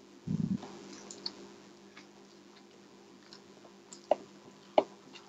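Close-up eating sounds of crisp fried fish kabiraji being bitten and chewed: faint scattered crunchy ticks, a low thump just after the start, and two sharper clicks near the end, under a steady low hum.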